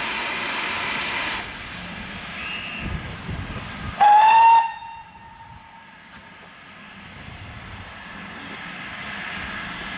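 Steam locomotive whistle giving one short, loud blast about four seconds in. Before it, a steady loud hiss of escaping steam cuts off suddenly about a second and a half in.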